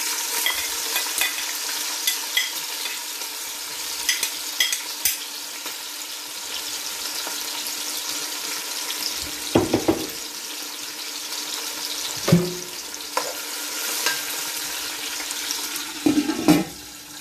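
Sliced red onions sizzling as they fry in hot oil in a deep pot, with crackling pops over the first few seconds. A few dull knocks come about 10, 12 and 16 seconds in.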